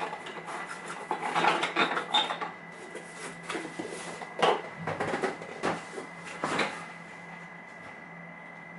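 Small metal tools and lock parts clinking and rattling while being handled on a workbench, a string of light clicks with a few sharper clinks that stop about seven seconds in.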